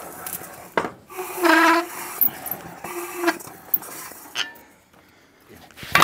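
Hand-operated can-seaming machine rolling a lid onto a tin can's rim with its pressure roller: metal clinks and knocks, with a short pitched squeal about a second and a half in and a weaker one about three seconds in.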